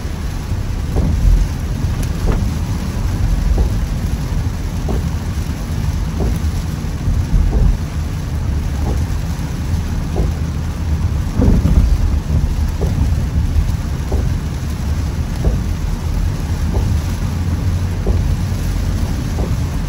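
Heavy rain on a moving car with a steady low rumble of tyres on a wet road. Faint knocks come about every second and a bit, and a louder swell of noise rises about halfway through.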